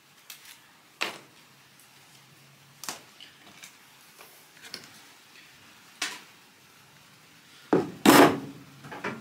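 Scattered sharp clicks and knocks of hands working on a stripped microwave's wiring and parts while cutting off tie wraps, with a louder clatter about eight seconds in.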